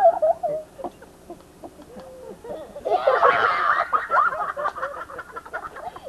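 A group of people laughing and calling out together, breaking out loudly about halfway through, with scattered voices around it.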